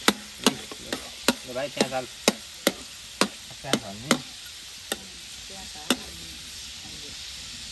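Food frying in a pan with a steady sizzle, while a stirring utensil knocks and scrapes against the pan about a dozen times at an irregular pace, the knocks stopping about six seconds in.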